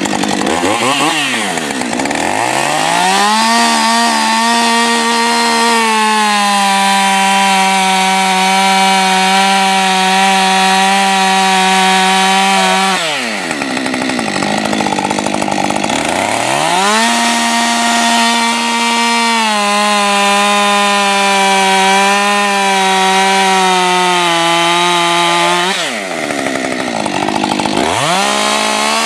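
Gasoline chainsaw boring into a tree trunk at full throttle, its engine note sagging slightly under load. About thirteen seconds in the throttle is let off and the saw idles with the bar buried in the trunk. It then revs up and cuts again, drops back to idle, and revs once more near the end.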